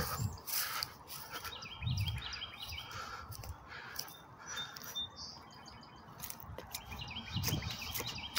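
Songbirds chirping in short, quickly repeated phrases, twice, with a few thin whistled notes between them. Two soft low thumps come under the chirping.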